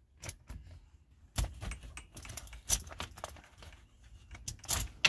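Ratchet tie-down straps being released one after another: metal ratchet buckles clicking open and clinking in irregular clicks and knocks, the loudest clank near the end.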